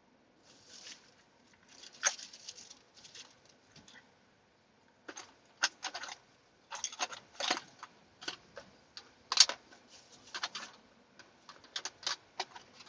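Irregular clicks, taps and light rustling of small objects being handled, coming in clusters with short pauses; no motor is running.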